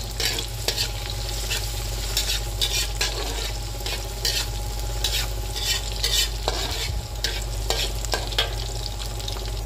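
Sliced shallots frying in hot oil in a wok: a steady sizzle, with a metal spatula scraping and tapping against the wok at irregular moments as they are stirred.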